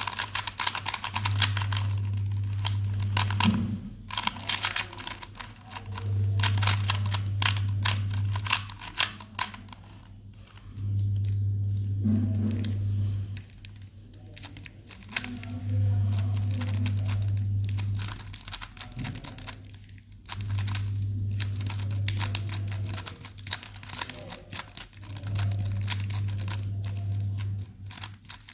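Rapid plastic clicking and rattling of Rubik's cube layers being twisted during a speed solve, in quick irregular runs of turns. Under it a low hum comes and goes in regular stretches of about two and a half seconds.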